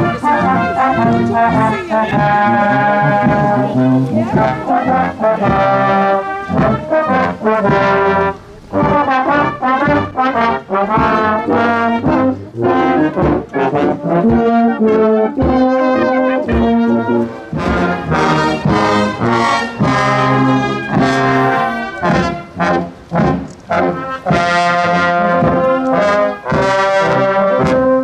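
A marching brass band of cornets, tenor horns, trombones and tubas playing a tune in full chords.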